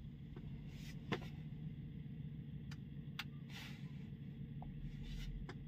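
Low, steady hum of a car engine idling in the background, with a few faint clicks and rustles.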